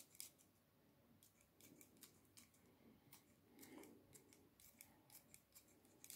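Scissors snipping fresh chives, a steady run of faint, quick snips about two to three a second.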